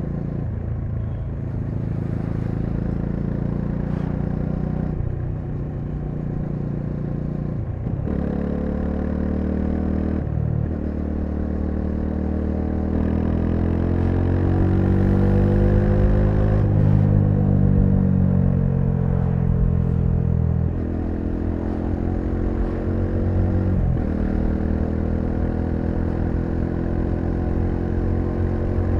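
Bajaj Dominar 400's single-cylinder engine running under way, its pitch climbing and dropping with several gear changes, loudest in the middle as the bike pulls hard.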